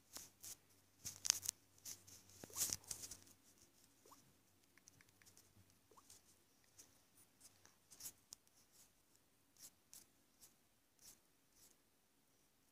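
Faint taps and scratchy clicks of fingers on a tablet's touchscreen: a quick cluster in the first three seconds, then scattered single taps about once a second.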